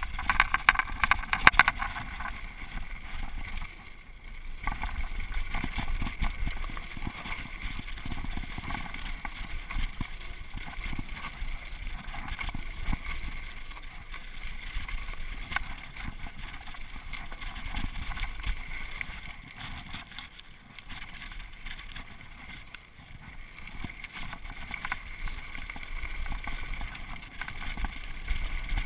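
A mountain bike descending a dry dirt singletrack at speed: wind rushing over the rider-mounted microphone over a low rumble of knobby tyres on dirt and a steady rattle of the bike, with a burst of sharp clattering in the first two seconds.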